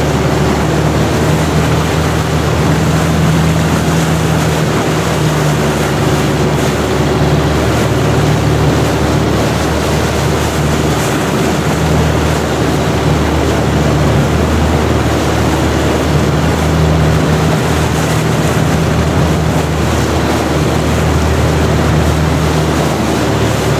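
Long-tail boat's engine running steadily at cruising speed, a loud drone with a low hum, over the rush of water past the boat.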